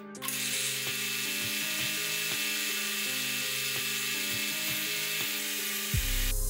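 Milling machine end mill cutting cast acrylic sheet, a steady rasping cutting noise, under background music with changing notes. A deep bass note from the music comes in near the end.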